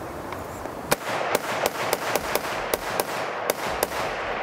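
FN SCAR 17 battle rifle (7.62×51 mm) firing a quick string of about ten semi-automatic shots, starting about a second in, roughly three shots a second at an uneven pace.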